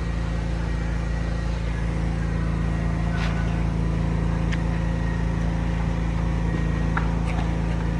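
An engine running steadily, a constant low hum that does not change, with a few faint clicks.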